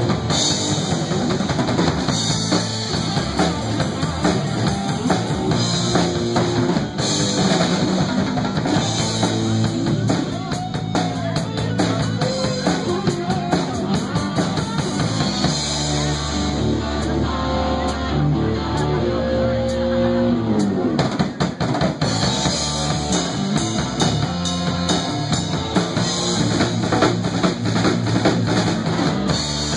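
A live rock band playing: drum kit, electric guitar and bass. About 16 seconds in the drums drop back under a held low note while guitar notes bend and slide down in pitch, and the full band comes back in about 22 seconds in.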